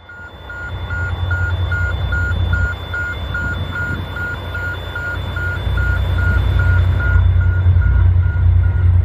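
Two Queensland Rail 2300-class diesel-electric locomotives hauling an empty coal train approach, their engines' low rumble growing louder. A steady electronic warning beep, about two and a half a second, sounds over it and fades near the end.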